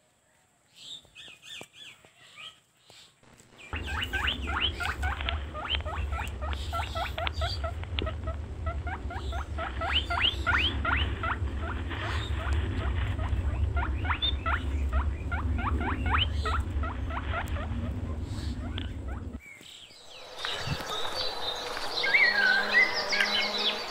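Rapid, high-pitched chirping calls over a steady low hum. They start a few seconds in and stop abruptly near the end, after which fainter chirping continues.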